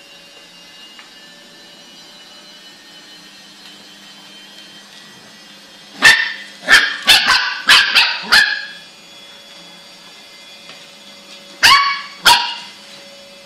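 Lhasa Apso puppy barking: a quick run of about six high, sharp barks about six seconds in, then two more near the end.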